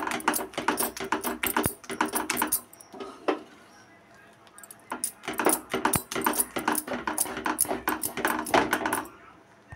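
Wooden spatula scraping and knocking against a non-stick kadhai while thick, sticky sabudana-milk batter is stirred and mashed. The batter has cooked down and is starting to leave the sides of the pan. The clicks come in rapid runs, with a pause of about two seconds in the middle.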